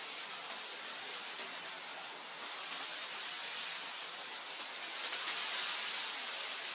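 Wind blowing through grass: a steady hiss that swells into a stronger gust about five seconds in.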